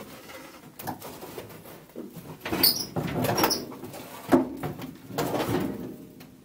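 Hands rummaging through debris in the trunk of an old Triumph Spitfire: irregular rustling and knocking, with a couple of short high squeaks in the middle and a sharp knock about four seconds in.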